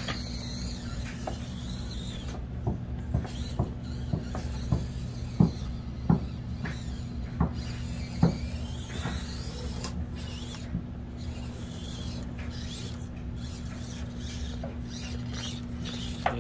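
Radio-controlled rock crawler (Axial Deadbolt) creeping over obstacles: a steady low motor and drivetrain hum with a dozen or so sharp clicks and knocks of the truck against the course, mostly in the first half.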